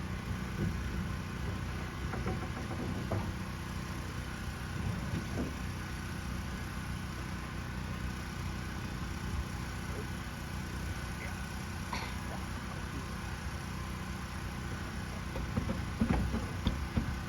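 An engine running steadily, with a few scattered knocks and a cluster of louder knocks near the end.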